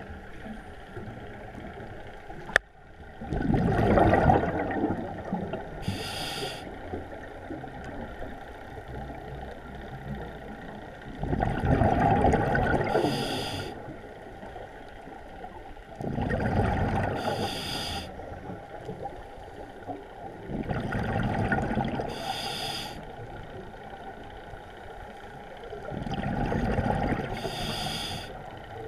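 Scuba diver breathing through a regulator underwater: five slow breaths, each a loud gurgling rumble of exhaled bubbles lasting about two seconds, followed by a short hiss as the regulator delivers the next inhalation. A single sharp click comes a few seconds in.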